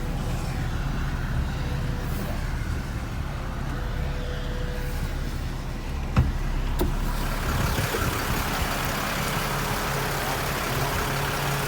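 Engine running steadily with a low hum, like an idling vehicle. There is a sharp knock about six seconds in, after which a broad hiss grows louder.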